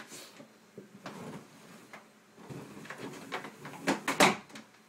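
Scattered handling clicks and clunks of hard plastic, with two sharp knocks close together about four seconds in being the loudest.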